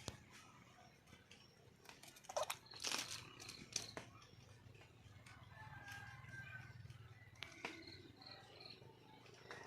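Wild junglefowl hen calling faintly, with a few sharp clicks between about two and four seconds in.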